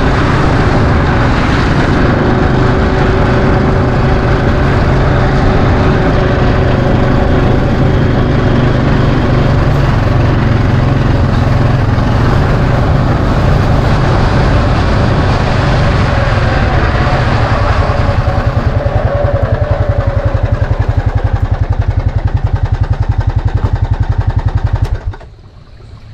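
ATV engine running under way, loud and steady, settling into a slower, evenly pulsing idle after about 18 seconds, then stopping suddenly about a second before the end.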